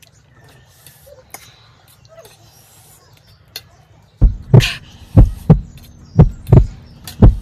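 A run of loud, heavy thumps, about two a second, starting about four seconds in after a quiet stretch.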